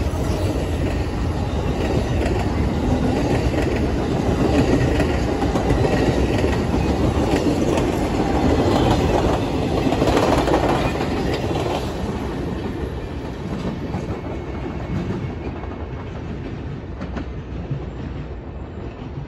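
Amtrak passenger train's cars passing at speed: a steady rolling noise of wheels on rails that fades over the last several seconds as the end of the train moves away.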